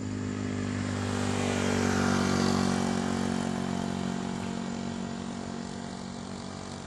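A motor vehicle passing on the road: its noise swells to a peak about two and a half seconds in, then fades, over a steady low engine hum.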